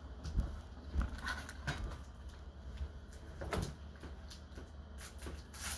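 A few scattered light knocks and rustles, the handling noise of someone moving about, over a low steady hum.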